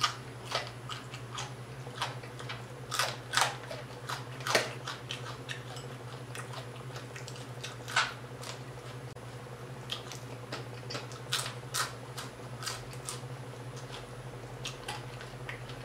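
Close-up eating sounds: a person chewing pieces of fried whole tilapia picked off the bone, with irregular wet lip smacks and clicks and fingertips being sucked. A steady low hum runs underneath.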